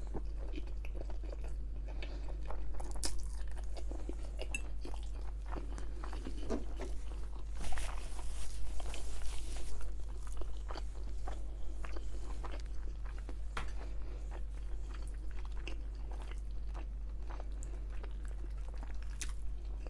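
A person chewing food close to the microphone: irregular small crunches, clicks and wet mouth sounds, denser about eight seconds in, over a steady low hum.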